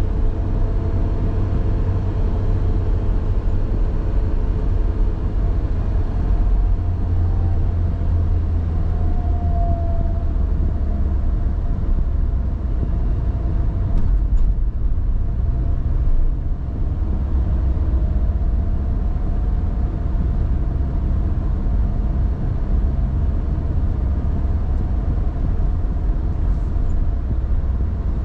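A car driving along a city street: a steady low rumble of engine and road noise, with a faint pitched hum in the first half and a single brief click about fourteen seconds in.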